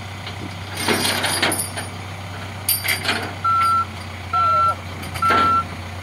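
Reversing alarm beeping three times, a steady beep a little under a second apart, starting past the middle, over an engine idling with a low hum. Before the beeps, two short clattering knocks, about a second in and near three seconds.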